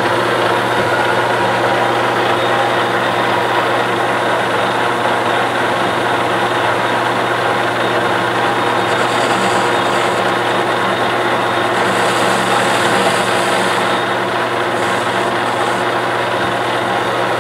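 Metal lathe running steadily with the chuck spinning, while the inside edge of a machined coupler is chamfered. A faint high hiss comes and goes a few times in the second half over the even drone of the machine.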